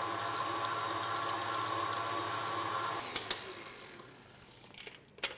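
KitchenAid Artisan stand mixer running at speed with its wire whisk, whipping cream to the semi-whipped stage; its motor hum winds down and stops about three to four seconds in. A few light clicks follow near the end.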